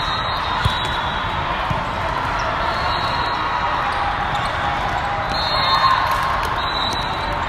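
An indoor volleyball rally in a large, echoing hall crowded with other matches: a sharp knock of the ball being struck about a second in, fainter knocks during play, and a steady din of many voices and play. Near the end, players shout as they win the point.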